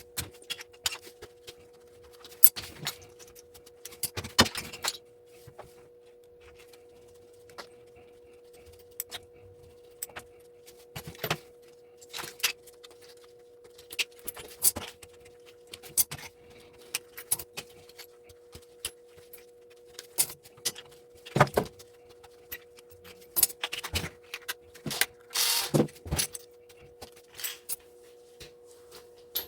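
Irregular metallic clinks and clicks of small brass plug parts and fuses being handled as old plugs are stripped for scrap, with a faint steady hum underneath.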